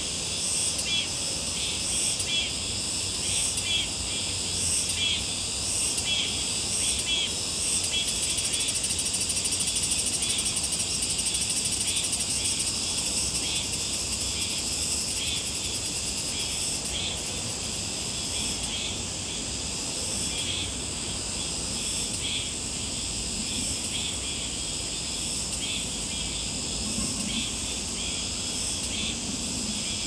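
Summer insect chorus: a steady high-pitched chirring with a short chirp repeating about once or twice a second. It grows into a denser, louder buzz from about a quarter of the way in to nearly halfway, then settles back.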